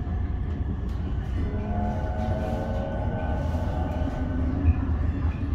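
MBTA Green Line Type 9 light-rail car heard from inside, pulling away from a stop. Steel wheels rumble steadily on the rails while the traction motors whine, rising gently in pitch as the car gathers speed. One short knock comes near the end.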